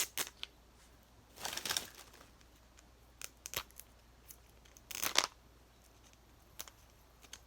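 Thin plastic wrapping on a Mini Brands capsule crinkling and tearing as its stubborn zipper strip is pulled at, with scattered small clicks and two longer rustling tears, about a second and a half in and about five seconds in.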